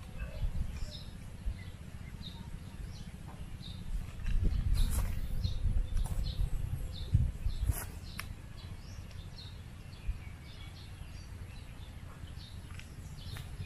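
Wind rumbling on the microphone, swelling louder through the middle, under a bird's short high chirps repeated steadily a little under twice a second. A couple of sharp knocks stand out, one midway and one a few seconds later.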